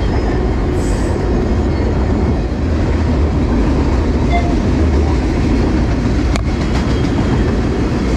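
Freight train of rail tank cars rolling past, a steady loud rumble and rattle of the cars on the track, with one sharp click about six seconds in.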